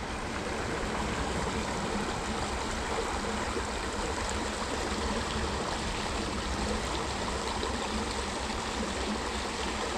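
Water of a small creek flowing steadily, an even rushing and trickling.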